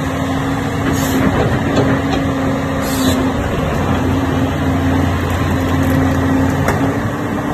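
Diesel engine of a Doosan DX300LC crawler excavator running with a steady hum, with two brief hisses about a second and three seconds in.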